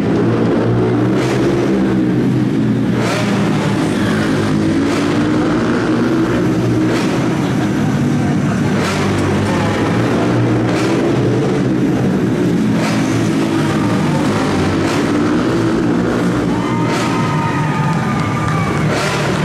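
Small four-stroke shifter ATV engines running and revving, their pitch rising and falling.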